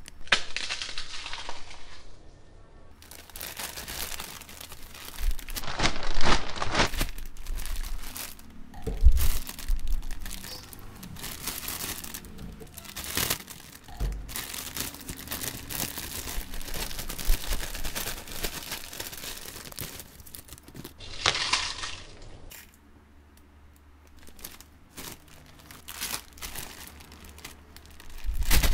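Foil-lined potato chip packets crinkling as they are handled and turned over, with the loose chips rustling inside, in irregular bursts of crackling and a quieter pause near the end.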